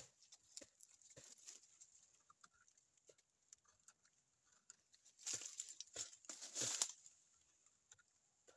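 Tree bark being scraped and torn off a trunk with the teeth: scattered small scraping clicks, then a louder rasping tear lasting about a second and a half around the middle.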